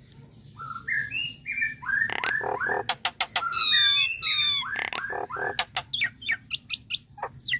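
Common myna calling: a varied run of rising whistled notes, harsh squawks and sharp clicks, ending in a quick series of short notes.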